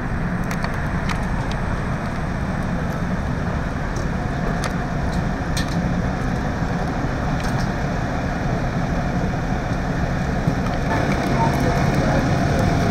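Fire engine's diesel engine idling, a steady low rumble, with a few faint clicks over it.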